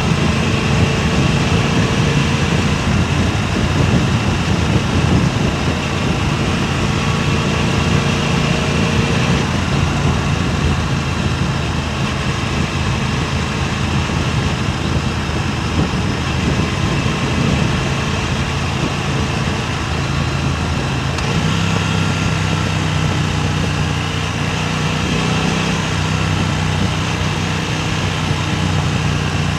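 Motor vehicle engine running steadily under rushing wind noise on a clip-on wireless microphone; the engine note shifts about two-thirds of the way through.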